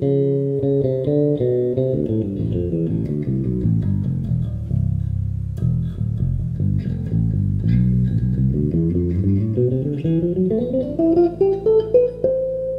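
FL Custom Master Custom 003 six-string electric bass played in quick runs of single notes. The notes step downward over the first few seconds, then a long run climbs steadily in pitch toward the end.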